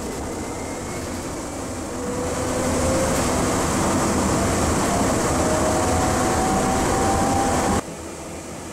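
San Francisco MUNI streetcar under way, its electric traction motors whining in a tone that rises steadily as it accelerates over a rumble of wheels and running noise. The sound grows louder about two seconds in and cuts off abruptly near the end, leaving a quieter steady hum.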